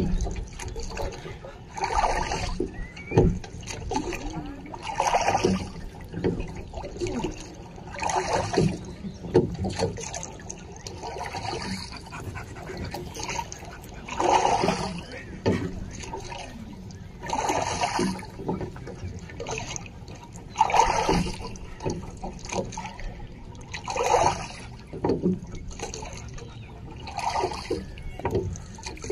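Water sounds, a gushing surge recurring about every three seconds over a steady rushing hiss.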